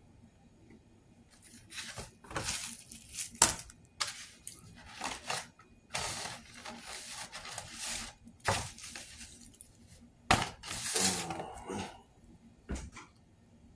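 Styrofoam takeout container and paper plate being handled: an irregular run of scraping, crinkling noises with several sharp clicks.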